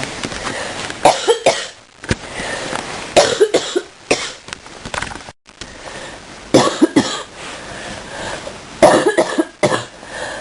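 A person coughing in four bouts, each of two or three sharp coughs, a few seconds apart.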